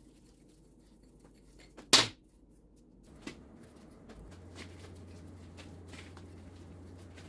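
A single sharp knock about two seconds in, with a few faint clicks of handling and a low steady hum after it.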